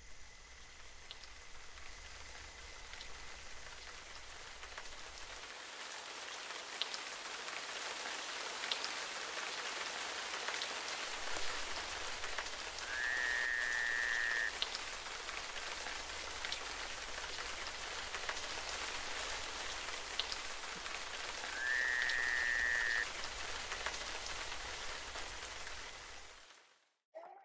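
Steady rain-like hiss that slowly grows louder, with two short pitched calls about nine seconds apart, each sliding up and then holding for about a second and a half. It cuts off abruptly near the end.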